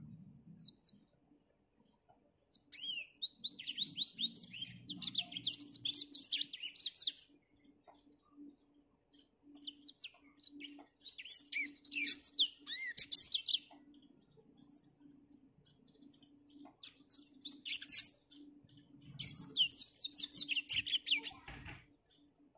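Black-throated canary (blackthroat) singing in about four bursts of fast, high twittering warbles separated by short pauses.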